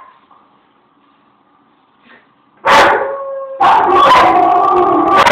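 Old English Sheepdog howling along with a dog howling on a television. After a quiet lull, two long held howls begin about halfway through, the second following straight after the first.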